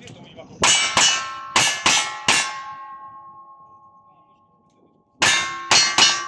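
Metal being struck: five sharp clangs in quick succession, then three more near the end, each leaving a ringing tone that fades slowly.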